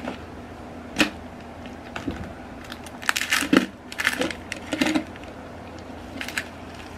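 Plastic moisture-absorber tub being handled and pried at: scattered clicks and crinkles of plastic in several short clusters.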